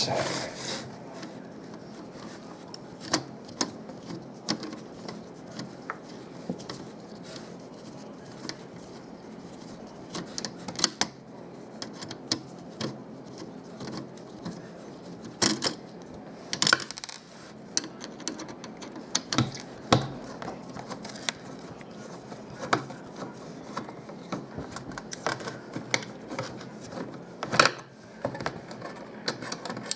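Scattered clicks, ticks and light metallic clatter of a car radio being taken apart by hand, its sheet-metal casing, screws and circuit boards handled and pried loose, with a few louder knocks.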